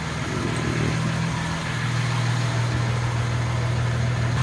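Jaguar Mark II's straight-six engine idling steadily.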